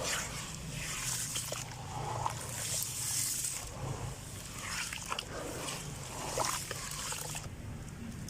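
Dry grey sand-cement crumbling, with gritty crunches coming about every second that stop shortly before the end, over a steady low hum.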